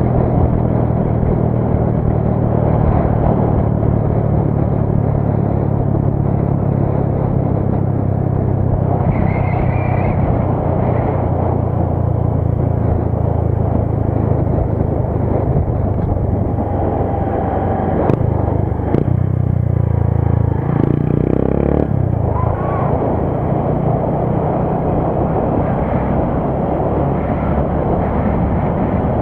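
Honda CG 150 Fan motorcycle's single-cylinder four-stroke engine running hard at a steady high speed, heard from on board. A little past the middle, the engine note briefly dips and shifts before settling again.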